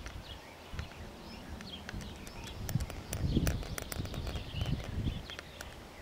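Songbirds singing and chirping in open countryside, with many short, quick notes and clicks, over low, irregular rumbling that swells in the middle.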